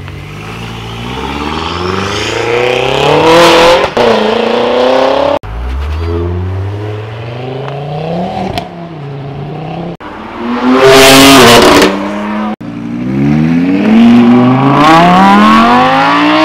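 Several performance cars accelerating hard away one after another, each engine revving up through the gears in rising sweeps that drop back at the gear changes. The sound cuts off suddenly three times as one car gives way to the next, and one car a little past the middle is the loudest, a harsh blast of exhaust.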